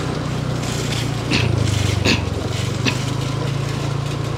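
Small motorbike engine running steadily at low speed, its pitch shifting slightly twice, with three short sharp knocks.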